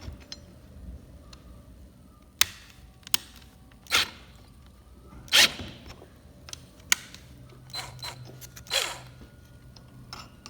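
Irregular clicks and knocks of hand tools and metal hardware being handled while a lag-screwed garage door opener bracket is adjusted straight, the loudest knock about halfway through.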